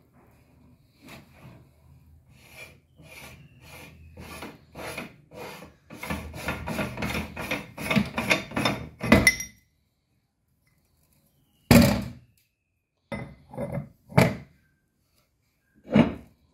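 Gritty metal-on-metal scraping in short strokes, about two a second and growing louder, as a meat grinder's chalk-caked retaining ring and perforated plate are worked loose by hand. Several separate sharp knocks follow in the second half.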